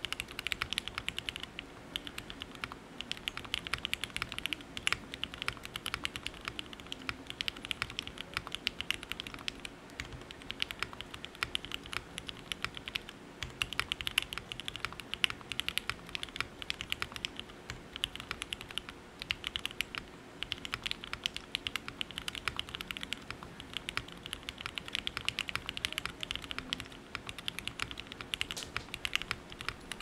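Steady touch-typing on a Mode Sixtyfive 65% custom mechanical keyboard fitted with lubed and filmed Cherry MX Black Ultraglide linear switches, a POM plate in an isolated top mount, and ePBT keycaps: a fast, continuous stream of keystrokes with short pauses between bursts.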